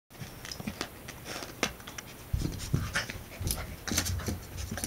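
Golden retriever–Labrador mix puppy panting and scuffling as it paws at a mirror, with many small sharp clicks and soft low thumps that grow louder about halfway in.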